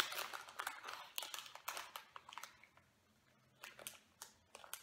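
Mouth sounds of someone chewing a very soft strawberry gummy candy: a run of small, faint clicks, with a short pause about three seconds in before a few more.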